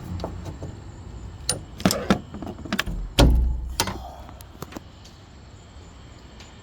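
Sharp clicks and metallic knocks as a hood gas strut is pried off its mount with a flathead screwdriver. The loudest knock, with a dull thud, comes about three seconds in.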